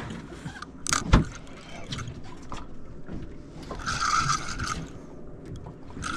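Spinning fishing reel being cranked, its gears whirring for about a second near the middle and starting again at the very end. A sharp knock about a second in is the loudest sound.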